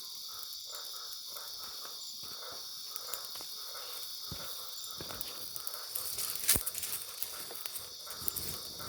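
Night insects, crickets among them, keep up a steady high-pitched chorus. A few sharp cracks break through it, the loudest about two-thirds of the way in.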